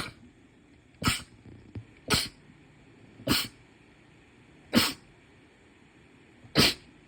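A run of sneezes: six short, sharp sneezes one after another, about a second or a little more apart.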